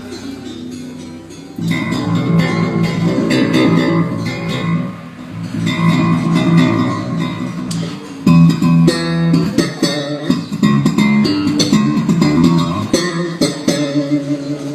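Electric bass guitar played solo: a held low note, then from about a second and a half in, fast runs of plucked notes with sharp percussive clicks.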